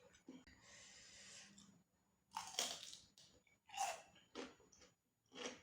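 Close-up chewing of crunchy deep-fried mole crabs: a soft breath about half a second in, then a series of sharp crunches a second or so apart.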